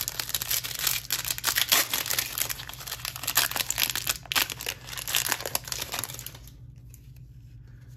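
Foil trading-card pack wrapper crinkling as it is torn open and the cards are slid out, a dense crackle of small clicks that stops about six seconds in.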